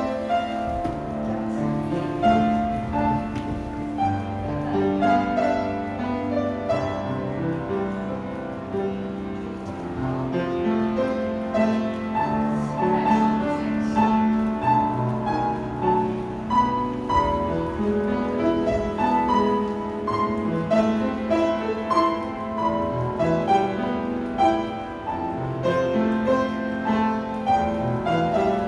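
Classical-style piano music playing without a break.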